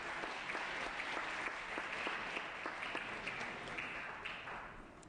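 Members of a legislative chamber applauding, many hands clapping at once, the applause dying away about four seconds in.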